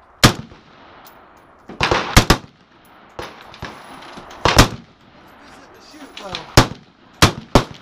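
Rifle shots at a firing line: about seven or eight sharp, loud cracks at uneven intervals, some in quick pairs, each followed by a short echo.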